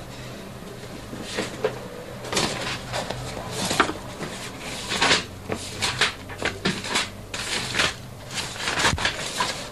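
Irregular rustling and light knocks of paper being handled, as pages of a book or magazine are turned. A faint steady low hum lies under it.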